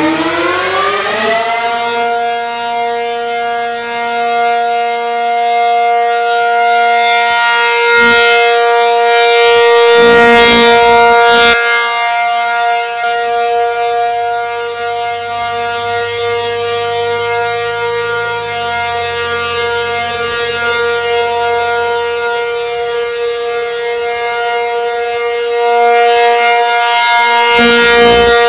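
P-50 outdoor warning siren finishing its wind-up, its pitch rising for about two seconds, then holding one steady, loud wail. It swells in loudness around ten seconds in and again near the end.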